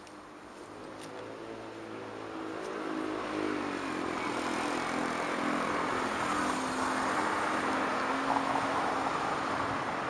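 A vehicle approaching, its engine note growing steadily louder over the first few seconds and dropping slightly in pitch, then holding steady as it runs close by.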